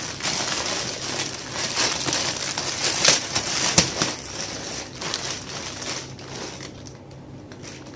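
Clear plastic packaging bag crinkling and rustling as it is handled, with many sharp crackles, dying down over the last couple of seconds.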